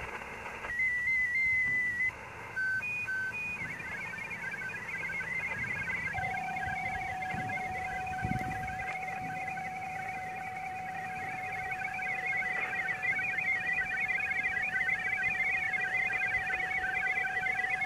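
Receive audio from a portable amateur radio transceiver: hiss with warbling digital-mode signals, a couple of short beeps two to three seconds in, and from about six seconds in a steady tone, a PSK31 signal that the phone's decoder is not managing to decode.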